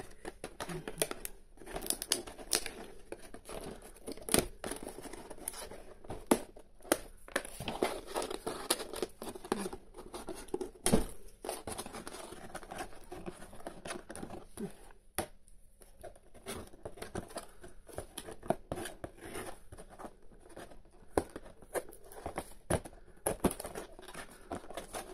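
Scissors snipping through clear tape and cardboard tabs on the back of a doll box, with tape tearing and crinkling between the cuts. Irregular sharp clicks, the loudest about eleven seconds in.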